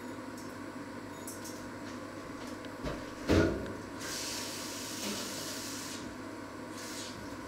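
Kitchen clatter as cookware is handled: a light knock and then a sharper, louder clunk about three seconds in, followed by a high hiss lasting about two seconds, over a steady background hum.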